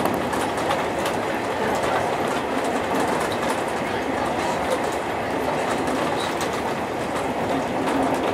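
201 series electric commuter train running at speed, heard from the driver's cab: a steady rumble of wheels on rail with faint scattered clicks.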